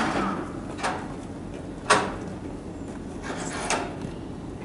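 A handful of sharp knocks or taps, about five spread irregularly, the loudest about two seconds in, over a faint background hum.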